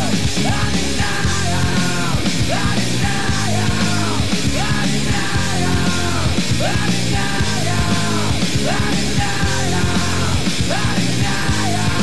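Rock song with a singer over a full band, received as an FM radio broadcast on the 88.3 MHz transmitter through a TEF6686 tuner.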